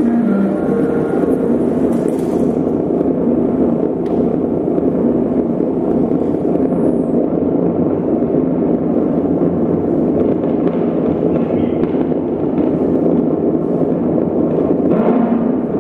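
Improvised noise music built live from sampled film soundtracks: a loud, steady, dense crackling wash of sound with no clear tune or words.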